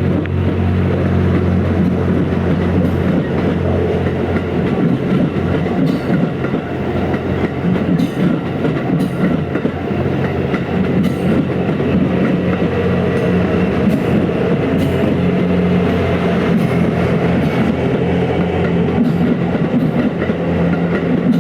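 Series 87 Twilight Express Mizukaze diesel train passing slowly: a steady low engine hum with the rail cars' wheels clicking now and then as they run over the turnouts.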